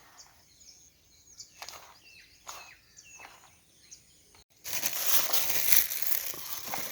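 Faint, scattered bird chirps over a quiet outdoor background. About four and a half seconds in, a sudden, much louder rustling noise starts and keeps going.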